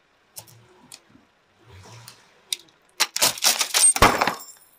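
Car tyre rolling onto a row of upright kitchen knives with plastic handles: a few faint clicks, then about three seconds in a dense burst of metallic clattering and cracking as the knives are knocked flat and crushed, with a deep thump in the middle of it.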